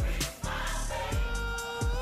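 Upbeat closing-theme music with a deep, steady beat; a long held note comes in about a second in.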